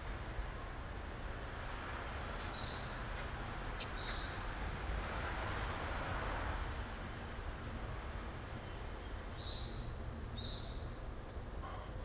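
Steady low outdoor rumble that swells for a couple of seconds around the middle, with four short high bird chirps.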